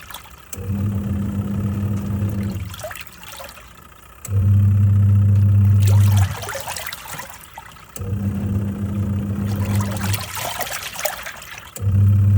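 Twin-tub washing machine washing: its motor hums in runs of about two seconds with short pauses between, four times, while water and clothes swish in the tub.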